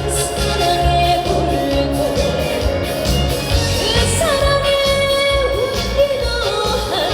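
Trot song performed live: a woman singing over a backing track with a steady bass beat, holding long notes with vibrato.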